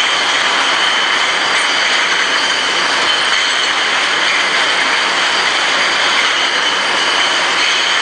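Glass bottle washing line and its bottle conveyors running: a loud, steady mechanical din with a constant high whine.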